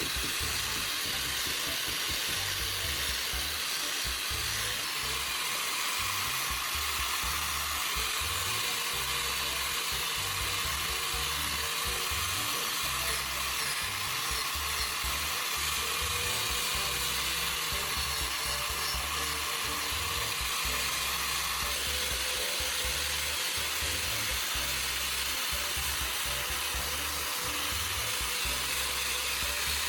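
Angle grinder with a sanding disc running steadily against hardened filler paste and wood, an even abrasive hiss.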